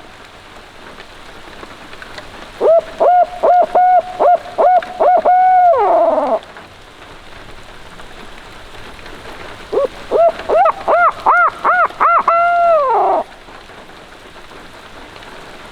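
Barred-owl hooting: two calls, each a quick run of rhythmic hoots ending in a long drawn-out note that slides down. Steady heavy rain underneath.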